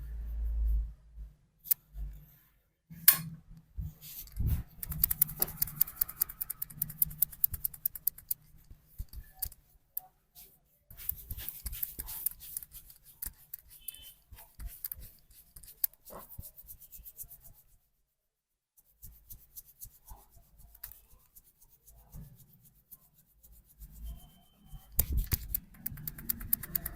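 Barber's hands working a head massage: runs of fast, crisp clicks and taps a few seconds long, broken by short pauses, with one sharp knock about three seconds in.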